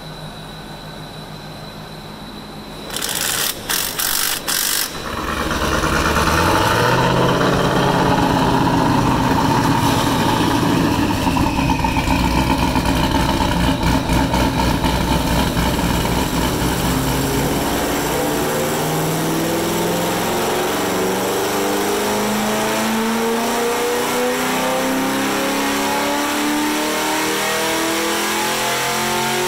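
Chevrolet Camaro SS V8, freshly fitted with an aftermarket camshaft, cranking and starting about five seconds in after a few seconds of shop hum. It idles unevenly, then its engine speed climbs steadily through the last ten seconds as it is run up on the chassis dyno.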